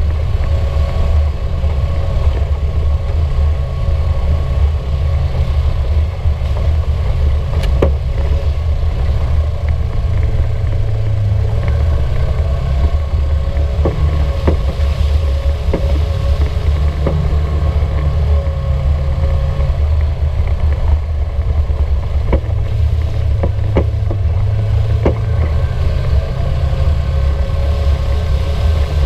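Polaris RZR 900 Trail side-by-side running over a trail, its engine rumbling steadily, with irregular sharp knocks, more frequent in the second half, from the back right of the chassis. The owners take the knock for a loose or worn sway bar; it can be reproduced by rocking the side frame.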